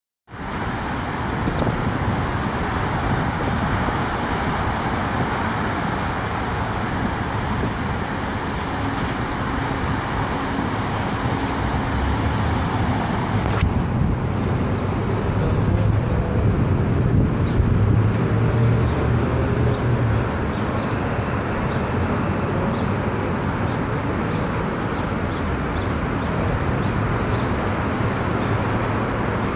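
City street traffic noise: a steady hum of passing cars and engines, with a deeper engine hum swelling around the middle.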